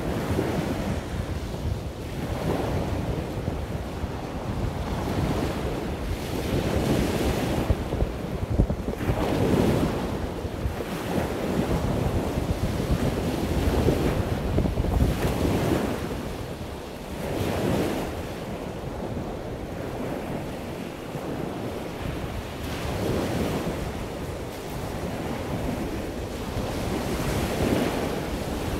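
Surf washing on a beach, mixed with wind buffeting the microphone; the rushing noise swells and eases every few seconds.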